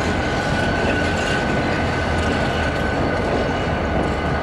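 A line of diesel locomotives running: a steady low rumble with a thin high whine that fades out about three seconds in.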